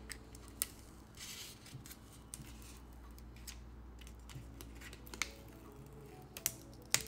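Adhesive craft vinyl peeled by hand off its backing sheet while weeding a cut design: a soft sticky crinkling rustle with a few sharp clicks of the film, the loudest near the end.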